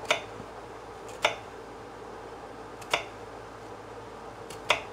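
Sharp kitchen knife cutting through an onion and striking a wooden cutting board: four separate sharp knocks, one to two seconds apart.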